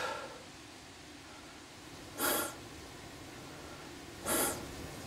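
Two short, sharp breathy hisses about two seconds apart, like quick exhales through the nose, over a faint steady background.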